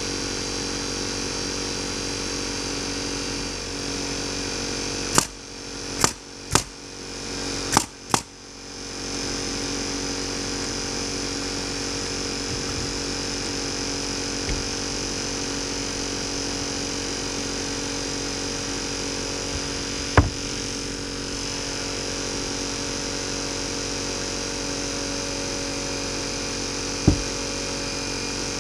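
A steady mechanical drone, like a motor running. It is broken by a cluster of sharp clicks between about five and eight seconds in, with single clicks later at about twenty seconds and near the end.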